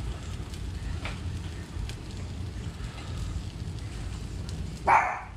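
Egg-dipped bread frying in a pan: faint crackling over a steady low noise, with one short, louder sound under half a second long near the end.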